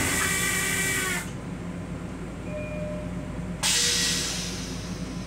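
Long Island Rail Road M7 railcar toilet flushing: a loud hissing rush that stops about a second in, then a second hissing rush that starts suddenly about three and a half seconds in and fades away. The train's steady low hum runs underneath.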